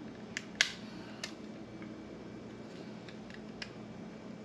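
A few sharp clicks of small plastic and metal phone-mount parts being handled and fitted together, the loudest about half a second in, over a steady low hum.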